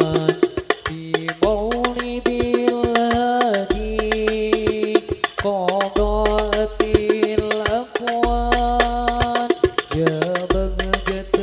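Male voices singing an Arabic sholawat devotional song in unison, with rebana frame drums, some with jingles, beating a dense rhythm under long held, ornamented notes.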